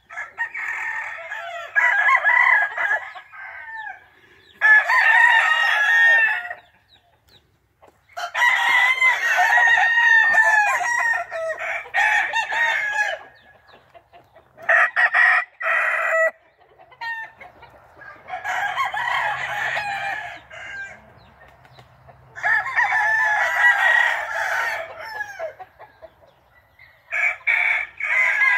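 Gamefowl roosters crowing again and again, a loud bout every few seconds, the longer bouts running to several seconds as crows overlap.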